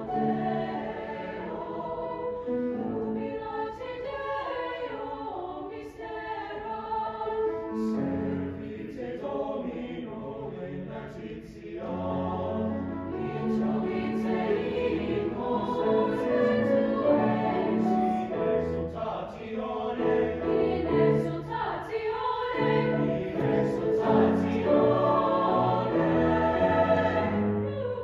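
Mixed chamber choir singing sustained choral harmony, accompanied by grand piano. The music swells louder from a little under halfway through.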